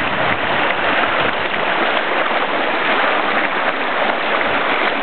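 Shallow mountain stream rushing over stones: a steady rush of water.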